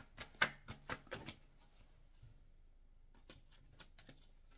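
Tarot cards being handled and shuffled in the hand. A quick run of sharp card snaps and clicks comes in the first second or so, then a pause, then a few faint clicks near the end.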